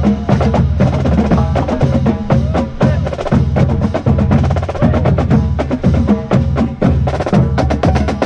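Marching band drumline playing a marching cadence, with snare and tenor drums in fast, dense strokes over a steady low drum pulse.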